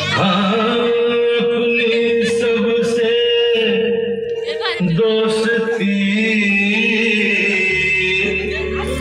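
Loud Indian dance song played over a DJ loudspeaker system, a sung vocal line with long held, wavering notes over the backing music.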